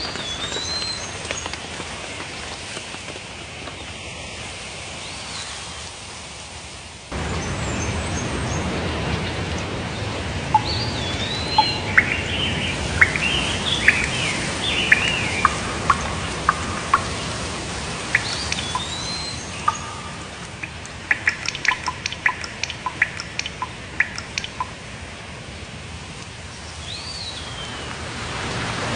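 Several wild birds singing and calling over a steady hissing background: one whistled call that rises then falls comes back several times, with a flurry of chirps in the middle and quick runs of ticking notes later. The background gets louder and fuller abruptly about seven seconds in.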